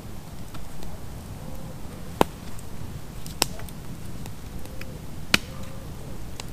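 Knife blade biting into a wooden stake as it is whittled: three sharp cracks, a second or two apart, with a few fainter ticks between.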